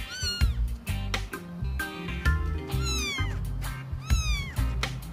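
Kitten meowing three times in short, high calls that fall in pitch, over background music.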